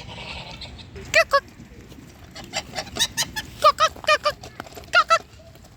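Farmyard waterfowl calling: short, pitched calls, mostly in quick pairs and small clusters, starting about a second in.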